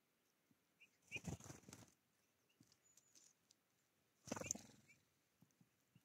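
Two short bursts of crackling rustle, about a second in and again about four seconds in, with faint scattered clicks between and after: a great tit feeding at a platform feeder, pecking at seeds and lard.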